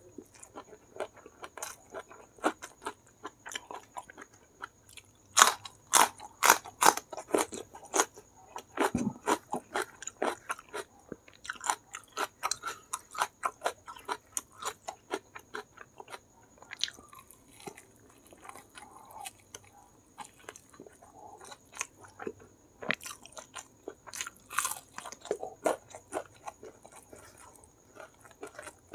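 Chewing and crunching of crispy Kentucky-style fried chicken (ayam geprek) with sambal and rice, eaten by hand: a run of irregular crunchy bites. The crunches are thickest and loudest about five to eight seconds in.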